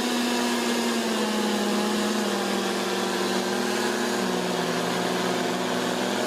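Two-stroke chainsaw engine running at high revs with a steady, high-pitched tone, dipping slightly in pitch about a second in and again about four seconds in.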